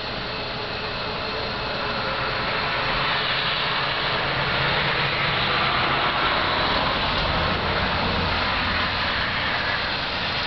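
Steady mechanical rushing noise with a low hum underneath, growing a little louder over the first few seconds, the hum strengthening past the middle.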